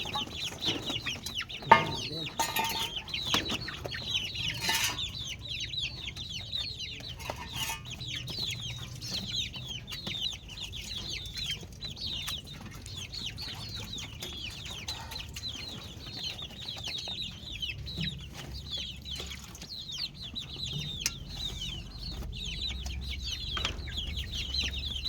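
A group of chicks peeping continuously: many short, high, downward-sliding peeps overlapping one another. A sharp tap sounds about two seconds in.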